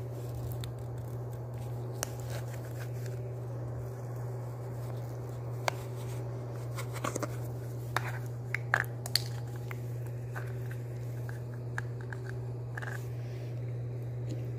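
Hands handling plastic Play-Doh lids, a mold and paper: scattered small clicks, taps and rustles, most of them about eight to nine seconds in. A steady low hum runs underneath.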